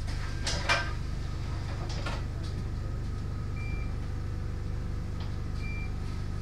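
Steady low hum of an Alexander Dennis Enviro 200 bus, heard from inside the saloon. A brief rattle of knocks comes about half a second in. Two short high beeps follow, about two seconds apart, in the second half.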